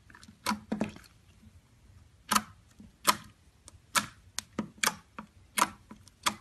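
Clear glitter slime popping and clicking as fingers press into it: about a dozen sharp, irregular pops.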